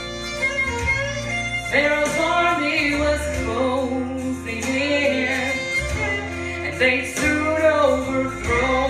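A woman singing a gospel song into a microphone, over instrumental accompaniment with a steady bass line.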